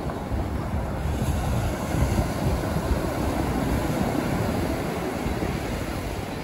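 Wind buffeting the microphone over the steady wash of North Sea surf, rising and falling in gusts.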